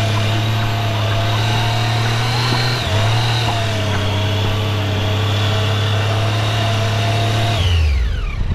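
Off-road motorcycle engine held steadily under throttle as the bike is ridden up through soft sand, with a brief dip about three seconds in. The revs fall away near the end.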